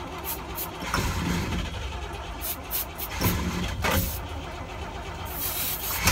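1965 Clark Cortez motorhome's engine cranking on the starter without catching, with a few sharp knocks along the way. It is being cranked cold without the choke, which its owners later wonder is why it won't start by itself.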